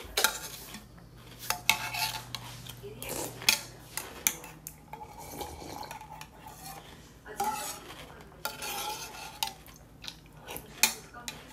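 Metal spoon clinking and scraping against a cup of cereal and milk, with several sharp clinks. Between them come the softer sounds of eating and drinking the milk straight from the cup.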